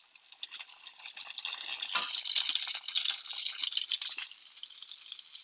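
Breaded chicken cutlets sizzling and crackling in hot oil and butter in a frying pan, with a light knock about two seconds in, after which the sizzling grows louder.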